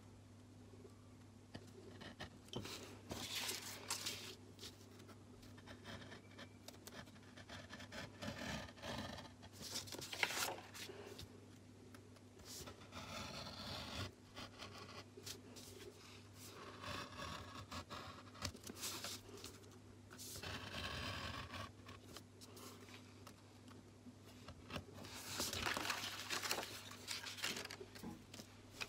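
Craft knife blade cutting through thin card on a board, in irregular short scraping strokes.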